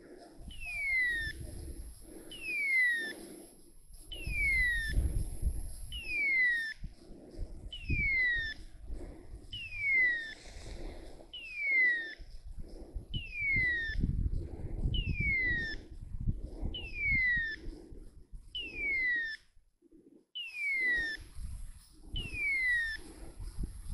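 Steady walking footsteps, about one a second, with a high falling squeak on every second step. The steps and squeaks pause together for about a second near the end, then carry on.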